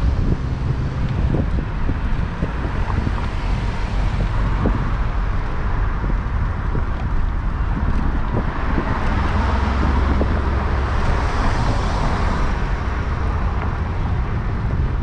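City street traffic heard from a moving bicycle, with wind rumbling on the microphone. The traffic noise swells for a few seconds about halfway through, as a vehicle passes close by.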